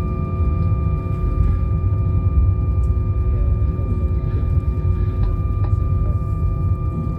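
Cabin noise inside an Airbus A320 taxiing after landing: a steady low rumble with the engines' idle whine held at a few fixed pitches.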